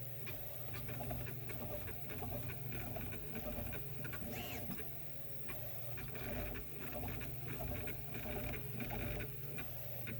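Prusa i3 MK3S 3D printer on a Bear frame printing: a steady fan hum under the short whirring moves and ticks of its stepper motors.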